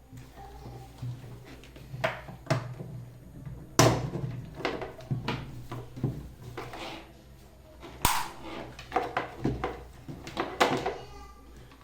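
Plastic fan parts being handled and fitted together during assembly: a string of irregular clicks and knocks, with sharp knocks about four seconds in and about eight seconds in and a quick run of clicks near the end.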